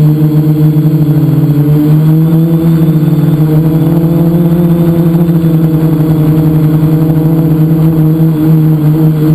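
Quadcopter's electric motors and propellers, heard from the camera on its own frame: a loud, steady buzzing hum that wavers slightly in pitch.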